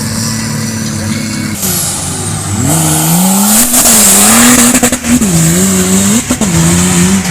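Off-road competition vehicle's engine revving hard, its pitch rising and falling again and again under changing load, with a hiss of spinning tyres over it from about three seconds in.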